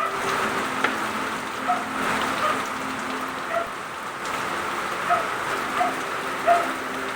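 Heavy rain falling steadily on a surface, with single louder drops landing at irregular moments. A faint steady hum runs underneath.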